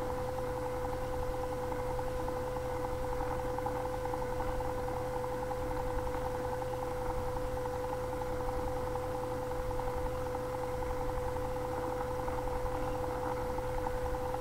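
Spinolution Firefly battery-powered electric spinning wheel running at a high speed setting, its motor and flyer giving a steady hum with one clear tone, partly picked up as vibration through the table it stands on.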